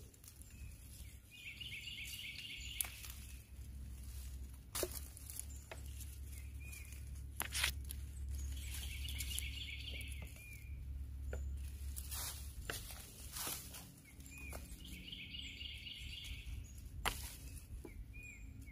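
A songbird singing the same short, rapid trilled phrase three times, about seven seconds apart, over footsteps and twigs snapping in leaf litter and undergrowth. A low steady rumble runs underneath.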